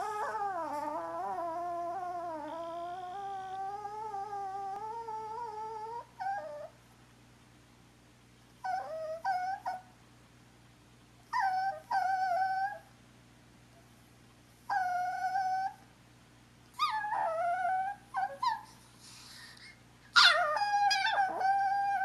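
Chihuahua whining and howling in high-pitched, drawn-out calls: one long wavering call of about six seconds, then a run of shorter calls about a second long with short pauses between, and a louder long call near the end. It is her way of asking another dog to play.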